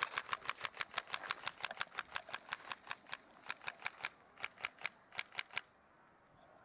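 Airsoft gun firing a long string of shots, a fast, even clicking at about seven a second, with two short breaks, stopping about five and a half seconds in.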